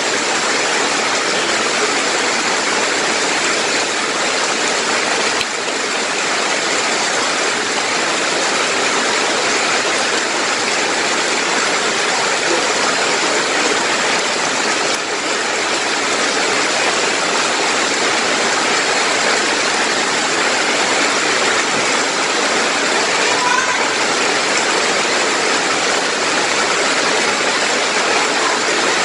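Heavy rain falling steadily on the leaves of banana and fruit trees, an even, unbroken hiss.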